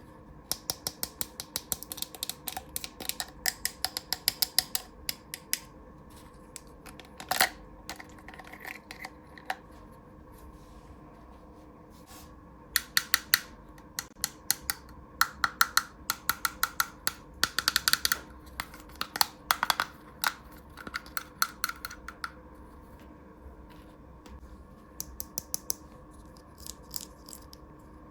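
Small plastic toy pieces being handled: clusters of light, quick clicks and taps, several a second, with pauses between, over a faint steady hum.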